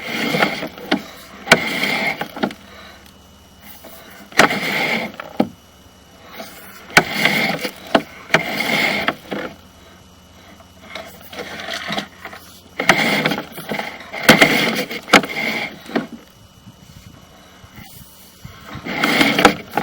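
Sewer-scope camera push cable being pulled back by hand in strokes, scraping and rubbing through the cleanout, about a second per pull with sharp clicks between pulls.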